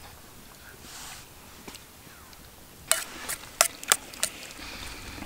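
Metal spoons clinking and scraping against steel soup bowls, a quick run of five or six sharp, ringing clinks past the middle.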